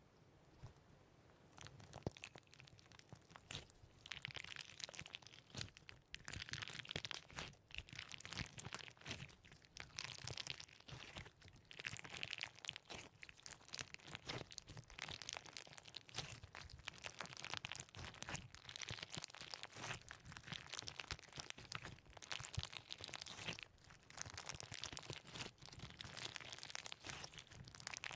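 Dense, irregular crunching and crackling, as of hands squeezing and poking crunchy slime.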